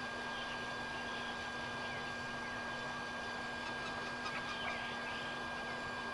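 Steady hiss with a constant faint low hum and a thin high whine; about four seconds in, a few faint high chirps.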